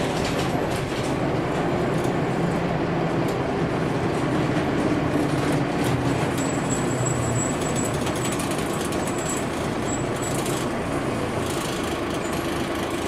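Dennis Dart SLF single-deck bus running on the road: steady engine and road noise with light rattles and clicks, and a faint high whine from about six to ten seconds in.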